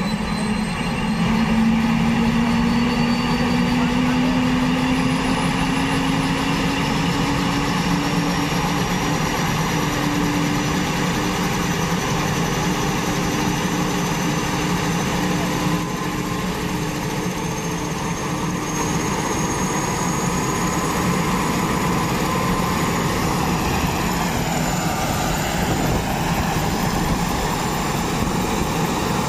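Airbus H145 helicopter's twin turboshaft engines running on the ground with the main rotor turning, spooling up before takeoff. A steady turbine whine slowly rises in pitch as the rotor speeds up.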